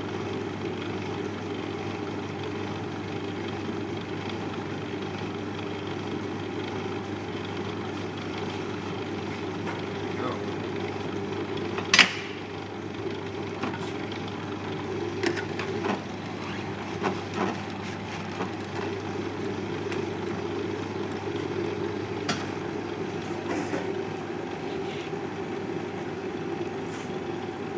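Steady low hum of a running machine, with scattered light clicks and knocks; the loudest is a single sharp knock about twelve seconds in.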